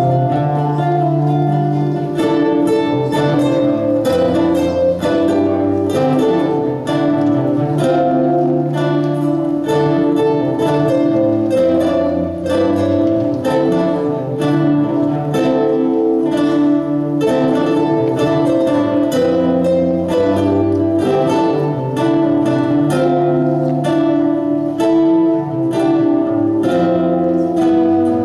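A guitar ensemble of many acoustic guitars playing together: a steady stream of quick plucked notes over held bass notes that change every couple of seconds.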